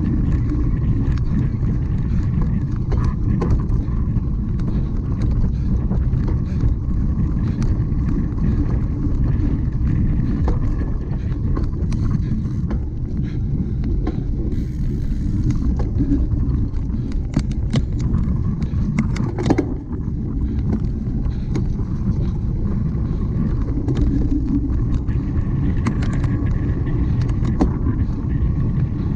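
Cyclocross bike being ridden hard over rough ground: a steady low rumble of wind and tyres, with constant small rattles and clicks from the bike and a sharper knock about two-thirds of the way through.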